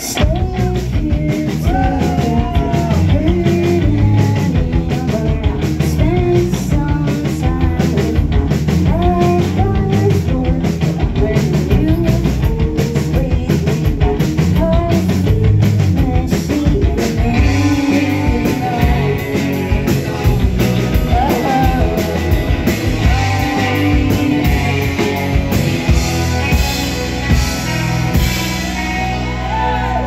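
Live rock band playing: two electric guitars, bass guitar and a drum kit keeping a steady beat, with lead vocals sung over them. The music kicks in abruptly at the start.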